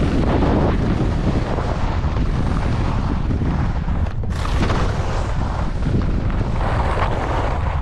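Wind buffeting a GoPro's microphone as a skier moves fast downhill, with the skis hissing over groomed snow. The rush dips briefly about four seconds in.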